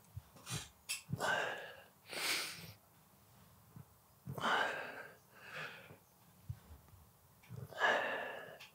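A man breathing hard through barbell hip thrust reps: forceful, noisy exhales and inhales in short bursts with pauses between them, from the effort of lifting the loaded bar.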